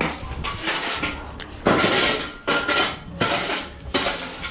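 Hard objects clinking and clattering in a run of separate knocks, some leaving a short metallic ring; the loudest clatter comes about halfway through.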